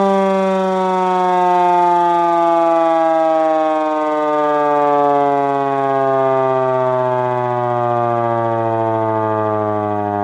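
Carter air raid siren sounding the Attack signal, a single loud wailing tone whose pitch falls slowly and steadily.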